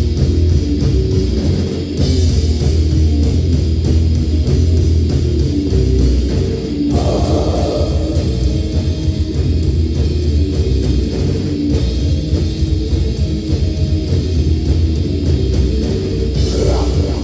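Live heavy metal band playing loud: distorted electric guitars through Marshall amplifiers over a Tama drum kit.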